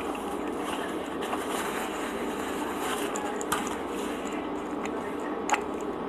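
Close-miked chewing of French bread and mashed beans over a steady background noise, with two sharp clicks, one about three and a half seconds in and one near the end.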